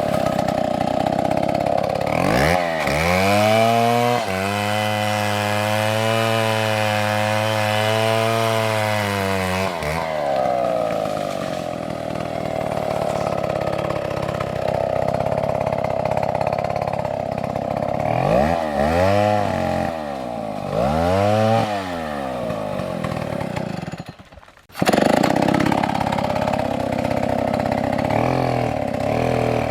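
A chainsaw revs up and runs at full throttle for several seconds, then drops back to a lower steady running note. Later it is revved twice in quick succession. There is a brief dropout near the end, and the saw is revving again in the last seconds.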